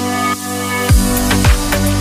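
Electronic background music with held synth chords; about halfway through, a deep kick drum with a falling pitch comes in, about two beats a second, with crisp high percussion.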